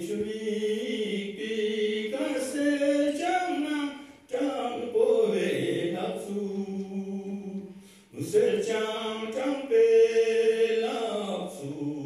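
A man singing solo in long held notes, in three phrases broken by short pauses for breath about four and eight seconds in.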